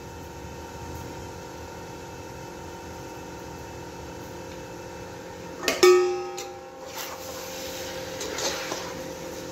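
Soft instrumental background music with plucked-string tones. About six seconds in there is one sharp ringing strike, and in the last couple of seconds a spoon starts stirring rice in the pot.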